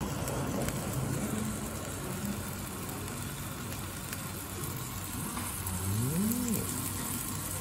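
Hamburg steaks sizzling on a hot iron serving plate under a paper splatter cover: a steady hiss of spattering fat and oil, the sign that the plate is still too hot to lift the cover. About six seconds in, a short hum rises and falls in pitch.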